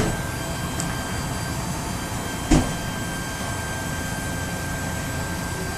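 Steady noise of slow traffic on a snowy road, with one short knock about two and a half seconds in.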